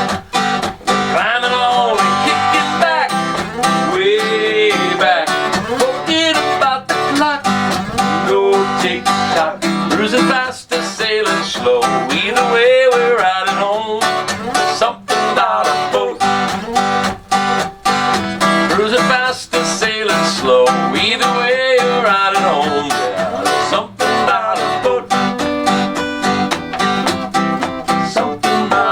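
Country band playing an instrumental break: acoustic guitar with drums, and a lead line that bends and slides between notes.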